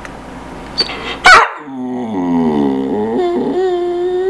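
Boxer dog whining: a short sharp cry about a second in, then one long drawn-out whine that falls in pitch and holds steady.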